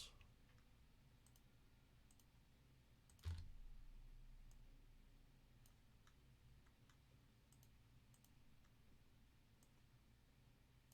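Near silence with faint, scattered computer mouse clicks and one louder soft knock about three seconds in.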